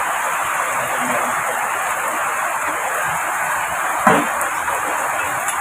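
Heavy rain pouring down steadily, a dense, even hiss, with one brief thud about four seconds in.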